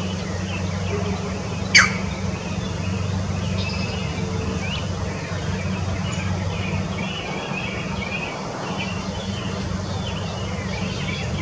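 Small birds chirping in quick, scattered bursts over a steady low hum, with one sharp click about two seconds in.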